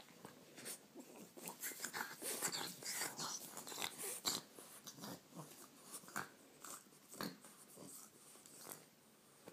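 French bulldog breathing and mouthing a person's hand as she is petted: soft, irregular short clicks and breaths, most frequent in the first half.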